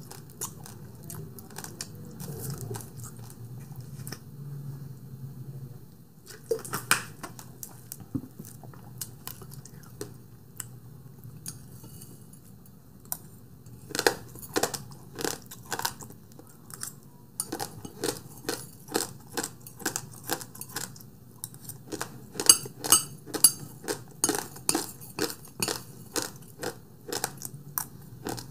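Close-miked chewing of basmati rice with sweetened condensed milk: wet mouth clicks and smacks, sparse at first, then a steady run of about two to three a second that grows louder in the second half.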